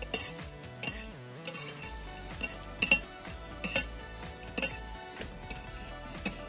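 A metal spoon clinks and scrapes against a stainless-steel saucepan at irregular intervals while miso paste is stirred to dissolve it in water. Background music plays under it.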